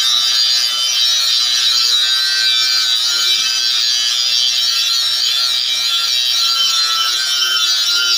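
Handheld electric motor with a grinding wheel on its shaft, grinding steadily against a farm machine's curved steel blade to sharpen its edge: a continuous hissing grind, unbroken throughout.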